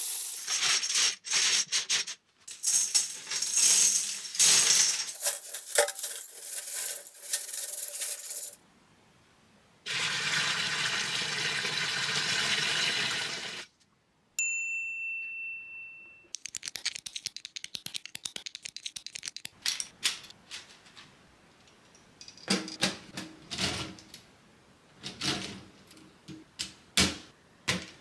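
Grey LEGO bricks poured into an empty glass aquarium, clattering and rattling against the glass and each other. After a pause come a few seconds of steady hiss, a short high ring, then scattered plastic clicks and knocks from LEGO Technic pieces being handled and snapped together.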